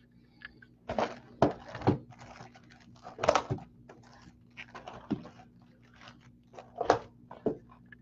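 Sealed cardboard trading-card boxes being handled, set down and slid on a table: a series of knocks and short scraping rustles, loudest about a second and a half in and again near the end.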